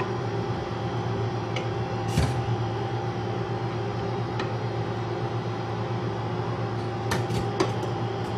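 A metal spoon scooping rice into a pot, with a few light knocks against the pot: one about two seconds in, a fainter one later and a small cluster near the end. A steady machine hum runs underneath.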